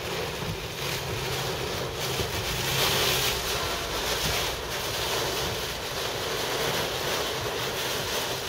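Heavy rain hitting a car's windshield and roof, heard inside the moving car as a steady rush of water noise that swells for a second or so about three seconds in.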